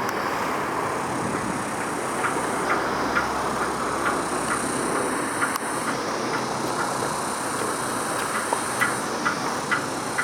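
Steady rumble of traffic crossing the Tsing Ma Bridge, with irregular sharp clacks scattered through it, more of them near the end.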